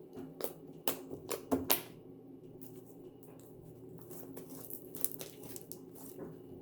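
Fluffy slime being squished and stretched by hand, giving sharp clicking pops in the first two seconds, then a run of softer, quicker crackles a few seconds later.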